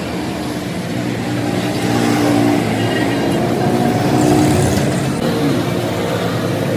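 A motor running steadily, its pitch shifting slightly up and down.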